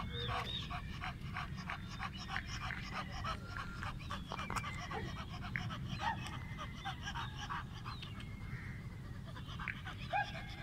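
Kohati Gultair dog panting with its mouth open: a quick, even run of short breaths, about three or four a second, with a few brief high squeaky tones in between.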